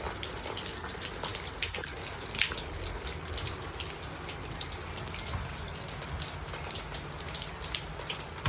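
Hail falling: a steady hiss of hailstones with many small sharp ticks as they strike hard surfaces, one louder hit about two and a half seconds in.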